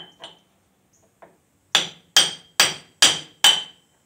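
A hammer striking steel on the backhoe's swing cylinder hardware: a few light taps, then five hard, ringing blows about two a second, as a stuck part is knocked loose.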